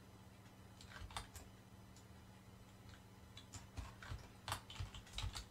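Clicks of a computer keyboard and mouse: two or three near one second in, then a quicker run of clicks in the last two seconds, over a faint steady hum.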